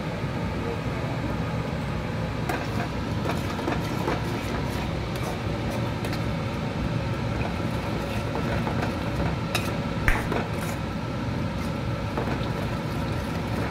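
A steel ladle stirring in a granite-coated kadai, clinking and scraping against the pan a few times, the loudest knock about ten seconds in with a brief ring, over a steady rumbling background noise.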